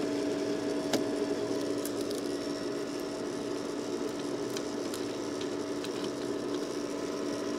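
Faint clicks of a screwdriver working a screw out of a pool heater's plastic top panel, over a steady low hum.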